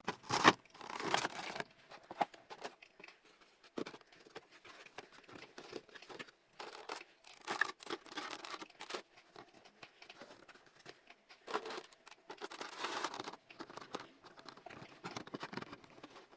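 Cardboard box and plastic insert of a Funko Pop package rustling and scraping, with scattered clicks, as the figure is fitted back into its packaging.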